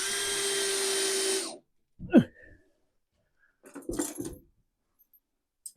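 Power drill running steadily for about a second and a half as it drives a screw into the wooden wall, then a short falling sound about two seconds in and a few clunks near the four-second mark.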